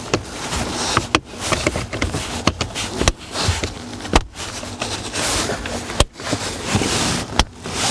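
Plastic car interior trim and wiring connectors being handled and snapped into place: a string of sharp clicks and knocks over rustling.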